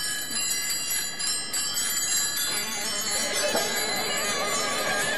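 Background music: many bells ringing and chiming together in layered high tones.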